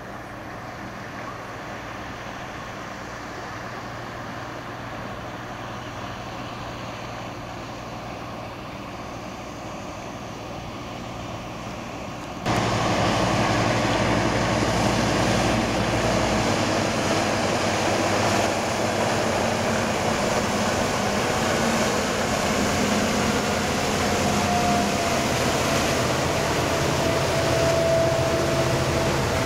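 Sea-rescue boat's engine droning steadily at speed, with the rush of its wake through the water. It gets abruptly louder about halfway through, and a higher whine comes in near the end as the boat passes close.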